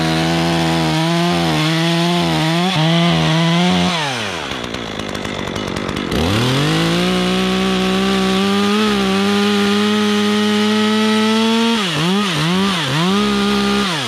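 Chainsaw cutting a pin oak limb at full throttle, held for about four seconds, then dropping back toward idle. It is revved up again and held for about six seconds, dips three times in quick succession near the end, and winds down.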